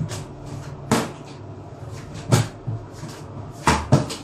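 Overhead kitchen wall cabinet being opened and handled while a bottle is put away: five sharp knocks and clunks, two of them close together near the end.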